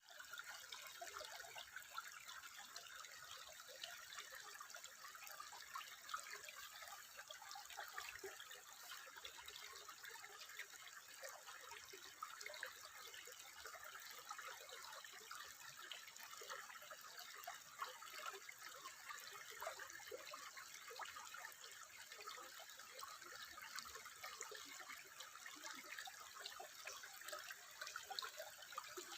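Faint, steady trickling water, a continuous patter of small drips and splashes with no larger plops.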